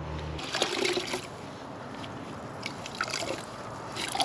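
A wet sponge being dunked and squeezed in a bucket of water, the water sloshing and splashing in three short spells.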